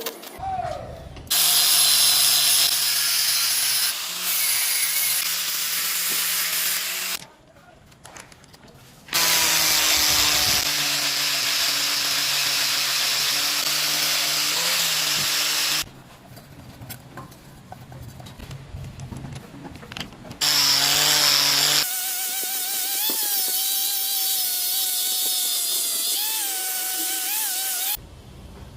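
Angle grinder with a grinding or polishing disc working a welded stainless steel pipe joint, a loud hissing grind over a steady motor whine. It comes in three long spells that start and stop abruptly, with quieter stretches between them.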